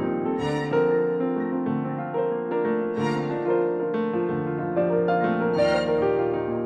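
Background music: a soft piano piece with held chords and a slow-moving melody.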